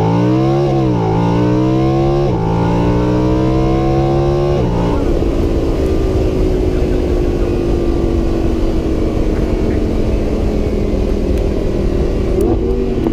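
Motorcycle engine accelerating hard through the gears: its pitch climbs, drops back at two gear changes in the first few seconds, and climbs again. About five seconds in it settles into a steady, noisier drone.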